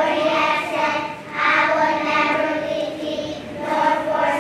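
A group of young children singing together in unison, holding long notes in phrases with short breaks between them.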